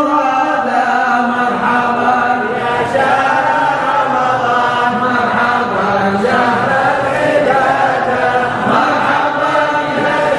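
Male voices chanting a slow, melodic devotional chant with long held notes that bend slowly in pitch.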